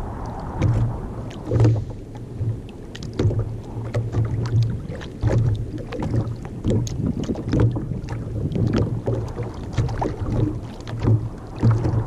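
Small waves lapping and slapping against the hull of a sit-on-top kayak, with repeated low thumps and short splashy clicks.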